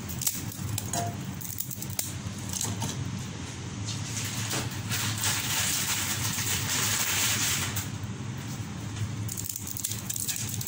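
A pot of chicken-and-potato cooking water bubbling at the boil: a steady bubbling hiss that swells in the middle, with a few light clicks early on and a low steady hum underneath.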